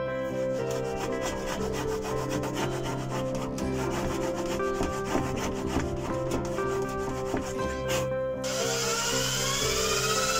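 A hand router plane shaving oak in a run of short, sharp scraping strokes. Near the end a power drill starts up, a rising, wavering whine with a hiss, as it bores through a steel hinge into wood. Acoustic background music plays throughout.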